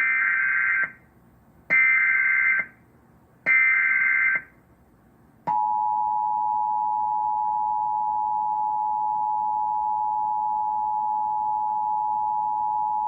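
Emergency Alert System SAME header: three short bursts of warbling digital data tones about a second apart, then the steady two-tone EAS attention signal starting about five seconds in, announcing a Child Abduction Emergency (Amber Alert).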